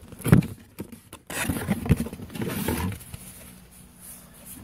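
Box and packaging being opened by hand: rustling and handling noise with two sharp knocks, one just after the start and one about two seconds in.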